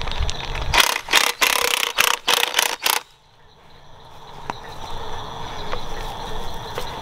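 Cordless impact wrench hammering in short bursts on the top nut of a removed front strut, with the spring still on it. This happens between about one and three seconds in, after which a faint steady sound slowly grows louder.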